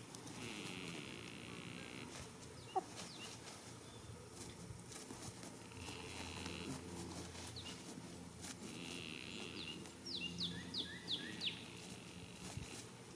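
Goat snoring in its sleep, a breath every few seconds. A bird gives a quick run of about five falling chirps near the end, and a single sharp click sounds about three seconds in.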